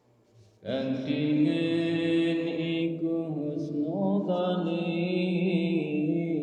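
A man chanting Islamic prayer-time vocals. He starts about half a second in and holds long notes that slide between pitches partway through.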